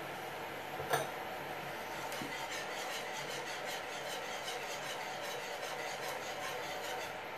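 Metal wire whisk stirring a creamy sauce in a frying pan, with a sharp clink about a second in and then a run of quick light scraping strokes at about four a second, over a steady hiss.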